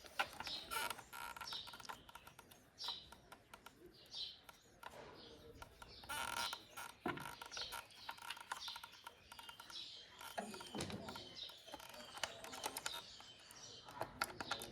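Light clicks and taps of small parts being handled, with birds chirping now and then.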